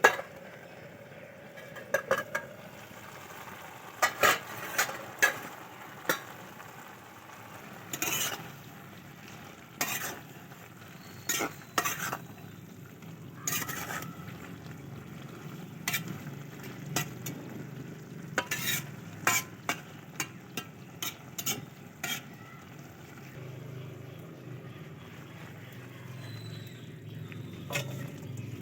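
A spatula stirring lau shak (bottle gourd greens) and dried shrimp in a cooking pan. It scrapes and knocks against the pan every second or two over a steady sizzle of the frying.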